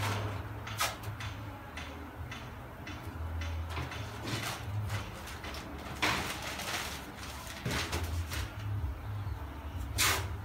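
Steady low hum of a spray booth's ventilation, broken by several short rustles and scrapes of handling; the loudest, near the end, is newspaper masking sheets being handled against the car's tailgate.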